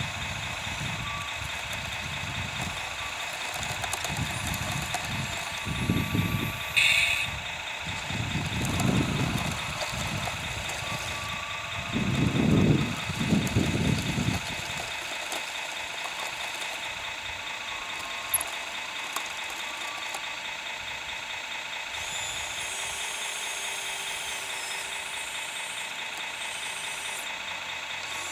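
Radio-controlled tracked loader working, its drive giving a steady high whine throughout, with bursts of low rumble through the first half that stop about halfway.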